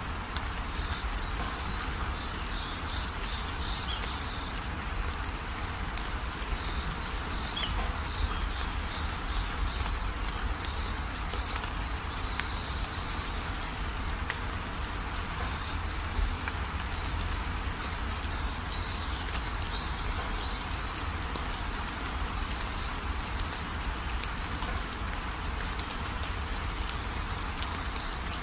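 Steady rain-like hiss with rapid, high chirps running through most of it, as of rain with birdsong.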